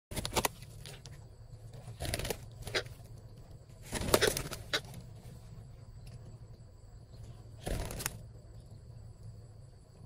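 Wings flapping in short bursts at irregular intervals as parakeets land on a hollow tree stump, the loudest about four seconds in. A steady insect drone runs underneath.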